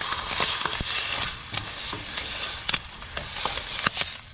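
Ham steak sizzling in a frying pan over high heat, a steady hiss with many sharp crackling pops of spattering fat.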